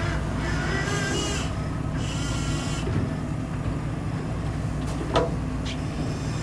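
Steady low drone of a boat's engine running, with brief whining tones in the first few seconds and one sharp knock about five seconds in.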